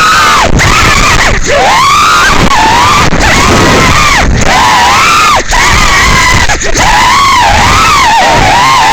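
FPV quadcopter motors whining, the pitch constantly rising and falling with throttle, with several brief cuts along the way.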